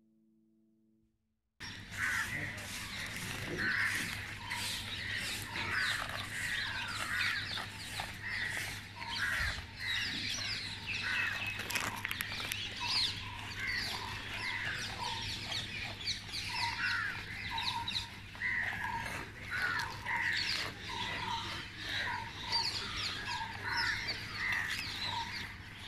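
Many birds calling at once, house crows cawing among them: a dense stream of short overlapping calls over a low steady hum. It starts suddenly about a second and a half in.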